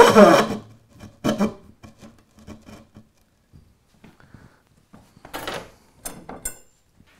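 Threaded steel rod being dropped through a drilled hole in a plywood board, its threads rasping and squeaking against the wood, loudest at the start with a shorter rasp a moment later. A few fainter rubs and sharp clicks follow near the end.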